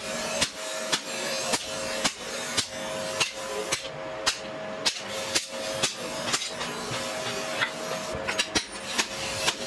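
Hand hammer striking red-hot leaf-spring steel on an anvil at a steady pace of about two blows a second, drawing out the knife blank, over a steady hiss. A few blows come closer together near the end.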